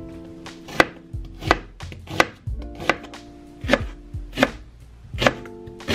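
Kitchen knife slicing an onion and then a Japanese white leek (negi) on a cutting board. The blade knocks on the board in slow, even cuts, about one every three-quarters of a second.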